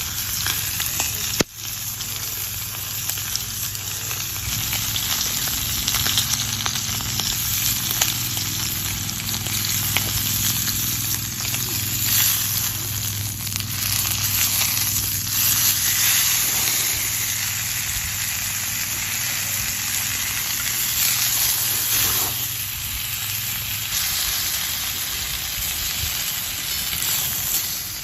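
Food sizzling on a barbecue grill over a campfire: a steady sizzle with scattered crackles, briefly cut off a little over a second in.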